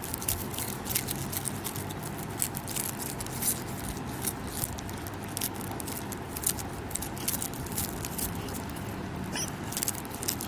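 A small pet chewing crunchy food close to the microphone, a rapid, irregular run of crisp crunches and clicks.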